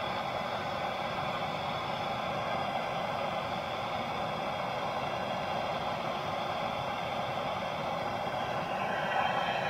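MAP-gas hand torch burning with a steady hiss, its flame held on a grease-clogged steel drain pipe to heat it.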